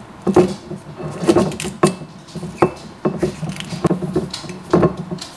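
Foil and wire cage being worked off the neck of a Prosecco bottle: crinkling and fiddling with sharp knocks and clicks from handling the glass bottle, several times over.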